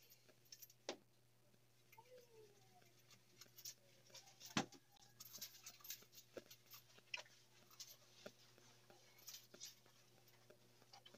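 Near silence with faint scattered rubbing and small taps as hands lather a wet dog's coat, and one sharper click about four and a half seconds in.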